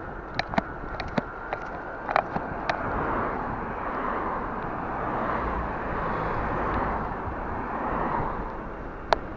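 Cars passing on the road, a rush of tyre and engine noise that swells and fades more than once. Several sharp clicks and rattles come in the first few seconds, and one more near the end.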